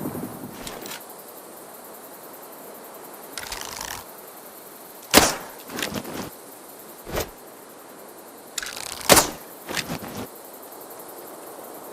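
A bow being shot twice, about four seconds apart. Each shot is a brief rustle, then a loud sharp snap of the release, then a few lighter knocks. A single sharp click falls between the two shots.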